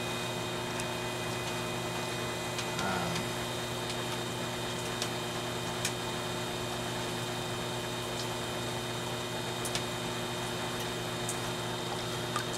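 Skutt Prodigy electric potter's wheel running steadily, a constant hum of several steady tones, with a few faint ticks over it.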